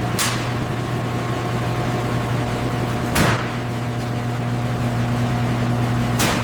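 A machine hum, steady and loud with a low drone and a few higher tones, broken by three sharp clicks about three seconds apart.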